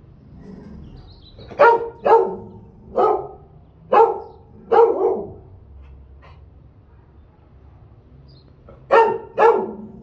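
A dog barking: five short barks in an uneven run, then a quick pair of barks near the end.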